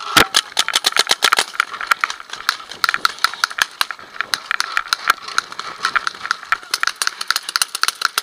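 Paintball markers firing in a rapid, irregular stream of sharp pops, several a second, in a firefight; the loudest pop comes right at the start.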